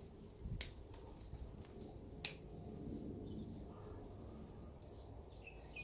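Leafy vegetable stems snapping as they are picked by hand: two sharp snaps about a second and a half apart, the first just over half a second in.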